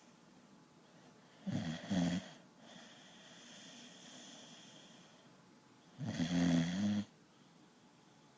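Pit bull snoring in its sleep, like a grown man: two loud snores, each under a second long, about four and a half seconds apart.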